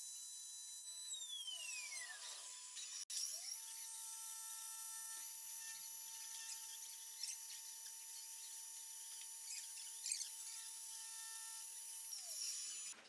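High whine of a CNC router spindle motor over a hiss: it falls in pitch as the spindle winds down in the first couple of seconds, breaks off briefly, rises as it spins back up, holds a steady pitch, and falls again as it winds down near the end.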